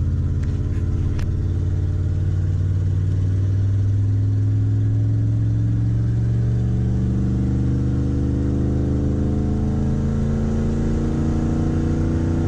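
Chevrolet Silverado 2500's 350 V8 heard from inside the cab, pulling steadily with its pitch slowly rising and no gear change. The automatic is not shifting up: the driver reckons it is stuck in about third.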